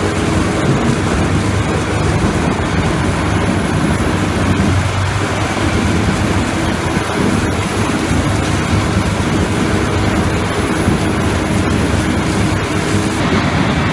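A heavy machine's engine running steadily, with a faint high whine above it.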